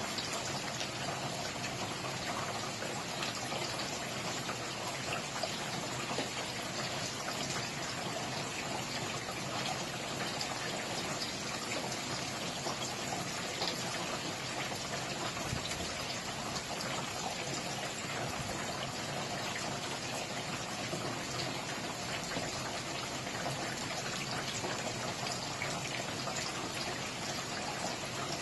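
Steady rain falling: an even hiss dotted with many small drop ticks, unchanging throughout.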